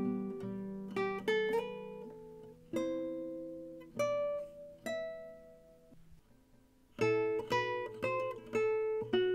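Background music: an acoustic guitar picking single notes and chords that ring and fade, with a short lull about six seconds in before the notes resume.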